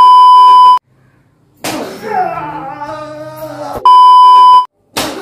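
Two loud, steady test-tone beeps of the kind that goes with TV colour bars, each under a second long, with a drawn-out cry falling in pitch between them. A sharp smack comes just before the end.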